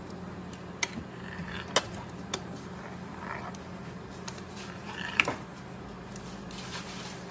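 Steady low hum of kitchen equipment, with a few sharp clicks and knocks from tools being handled on a granite counter while pizza dough is worked. The loudest knock comes about five seconds in.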